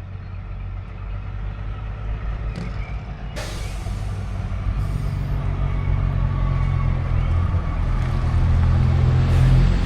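Diesel engine of a classic bus running and growing steadily louder as it draws near, with a sudden hiss of air about three and a half seconds in.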